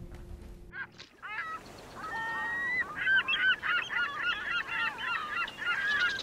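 Gulls calling over and over in many short, overlapping cries, over a steady wash of surf.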